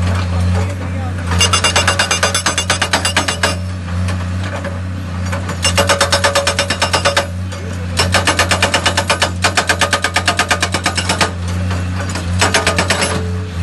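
SSI S50 hydraulic breaker on a Tata Hitachi 130 excavator hammering a boulder in four bursts of rapid blows, about eight a second, each burst a second or two long and the longest about three seconds. The excavator's diesel engine drones steadily underneath.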